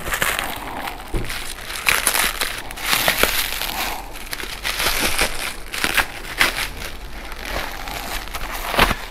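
Clear plastic packaging bag crinkling and rustling as it is pulled off a part and crumpled by hand, in irregular rustles broken by small sharp crackles.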